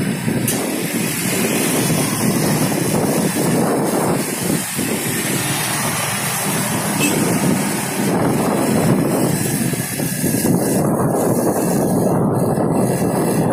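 Steady road noise from riding through busy street traffic: engine and tyre rumble from the vehicle carrying the microphone and the cars and motorcycles around it.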